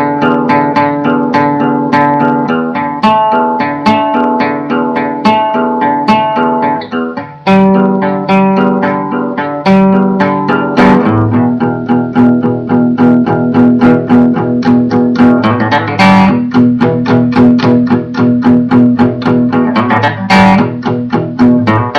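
Solo instrumental improvisation played as a quick run of plucked notes. There is a short break about seven seconds in, then a louder passage built on lower notes.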